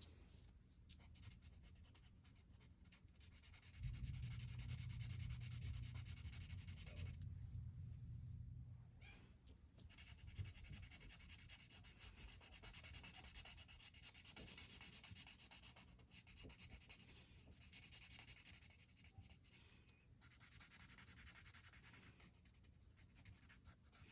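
Faint scratchy strokes of a colouring marker on paper, coming in runs of a few seconds with brief pauses between them.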